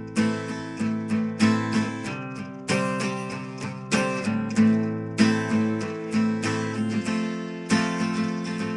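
Acoustic guitar being strummed, a rhythmic run of chords with sharp strokes and the chord changing every second or two.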